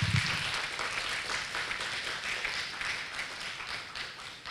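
Audience applauding, many hands clapping together, dying down near the end.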